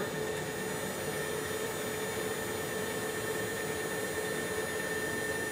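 Stepper motors of a homebuilt CNC router, fitted with penny dampers, driving the Y axis at a steady 54 inches per minute without stalling: a steady electric whine with two even tones.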